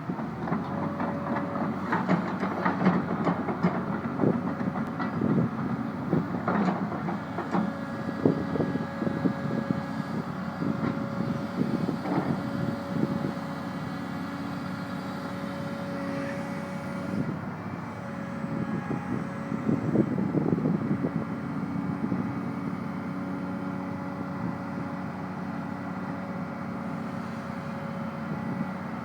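Doosan DX300LC 30-ton excavator running, its diesel engine droning steadily with a held whine. Irregular metallic clanks and knocks come thick through the first half, ease off, and return briefly about two-thirds of the way in.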